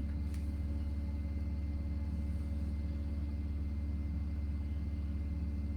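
A steady low hum with a few faint, unchanging tones above it, and no other event.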